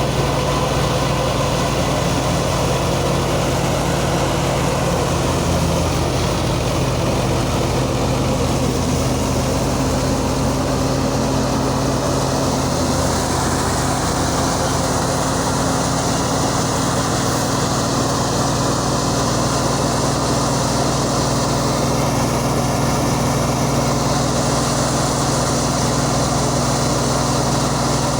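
Engine of wheat-harvesting machinery running steadily under load, with a constant low drone and a dense mechanical clatter above it.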